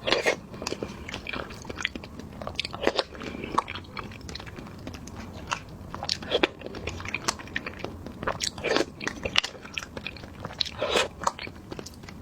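Close-miked eating sounds of a jelly snack being bitten and chewed: a run of crisp crunchy clicks, with a few louder wet bites every couple of seconds.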